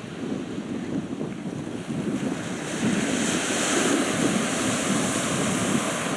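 Sea waves washing against the shore, with wind gusting over the microphone; the rush swells louder about three seconds in.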